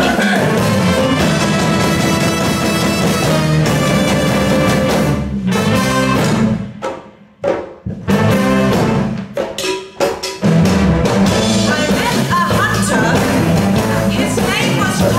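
Live big band with a brass section of trumpets, trombone and saxophone over African hand drums. About six seconds in the band stops for a few seconds, broken only by a few short hits, then comes back in at full strength.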